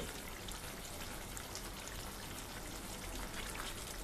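Thick mustard fish curry bubbling and sizzling in a pan as it cooks down: a faint, steady crackle of small pops.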